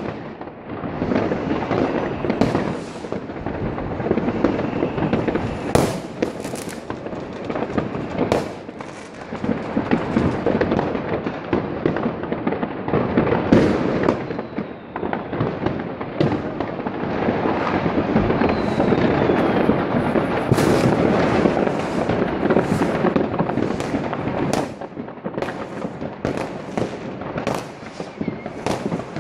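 Many fireworks and firecrackers going off at once, near and far, merging into a continuous crackling din with sharp single bangs standing out throughout, and a faint whistle or two.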